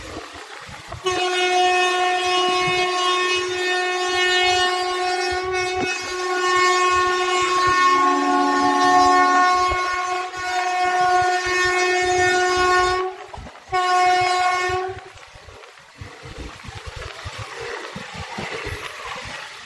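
Locomotive air horn sounding one long, steady blast of about twelve seconds, with a lower second tone joining briefly near the middle. After a short break comes a shorter blast of about a second, then only train running noise.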